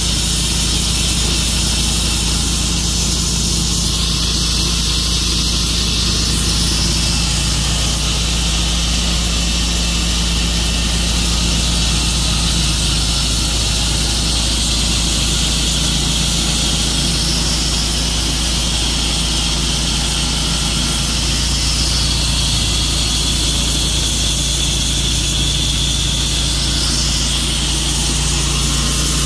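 Tru-Cut portable sawmill's gas engine running steadily, with a low hum and a hiss over it.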